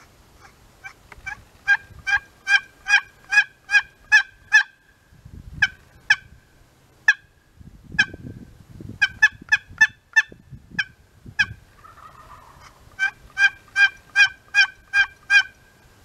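Wild turkey yelping: several runs of evenly spaced, pitched yelps, about two to three a second, with a dozen or so notes to a run. Low rustling sounds come in the gaps between runs.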